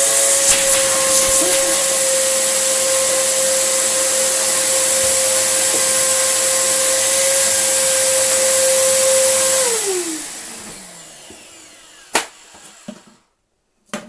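Samsung SU3364 1800-watt upright vacuum cleaner running with its hose off: a steady motor whine over rushing air, from a machine with a large air leak that the owner is tracing. Just under ten seconds in it is switched off and the motor winds down, falling in pitch, then there is a sharp click.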